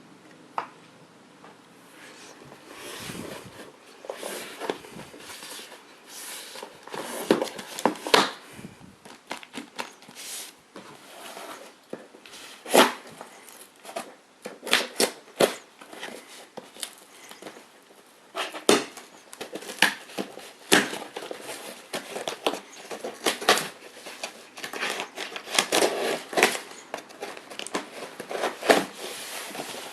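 Packaging being handled and opened by hand: rustling and crinkling with irregular sharp taps and knocks, and some tearing.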